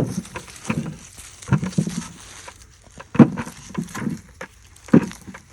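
Picked apples thudding as they drop: an irregular series of short dull thuds, with three louder ones at the start, about three seconds in and near the end.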